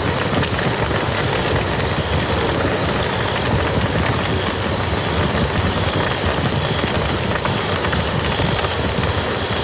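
Campfire crackling with small pops over the steady rush of a flowing river.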